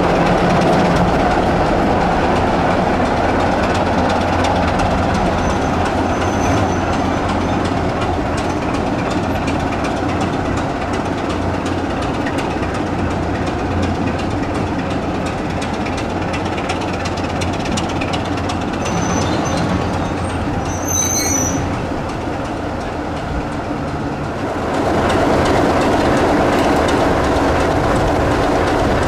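BR Class 27 diesel locomotive's Sulzer engine running steadily at low revs, a constant low drone, with a few faint high squeaks about twenty seconds in. The drone grows louder from about twenty-five seconds in, close beside the loco's buffer beam.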